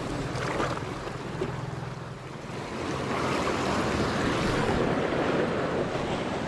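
Sea surf washing in, with wind on the microphone; the wash swells louder about three seconds in.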